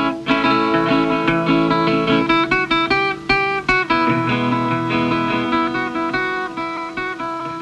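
Guitar music: quick plucked notes over held low bass notes.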